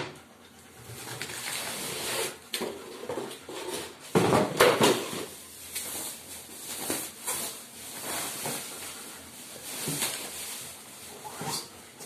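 Plastic packaging cover being handled and pulled off a boxed dishwasher, rustling and crinkling in irregular bursts, loudest about four seconds in, with cardboard box flaps brushing and scraping.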